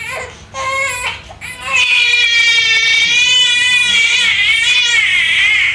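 Infant crying after being given an injection: a few short cries, then one long wail from about two seconds in.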